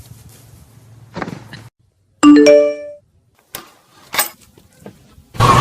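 A loud, bright chime of several quick rising notes, like a doorbell, ringing out for under a second. A few faint clicks follow, and loud music cuts in near the end.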